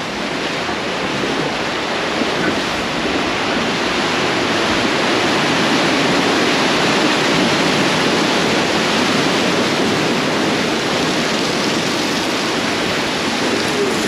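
Steady, loud rush of water around a river-rapids raft ride: the river churning past the raft, with spray and falling water.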